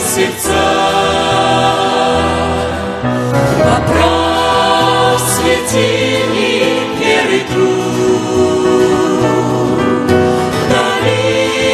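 Background music: a Russian-language Christian hymn sung by a choir, with long sustained chords that change every second or two.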